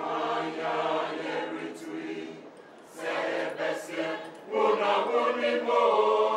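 Choir of women's and men's voices singing together, dropping away briefly a little before the middle, then coming back louder and fuller.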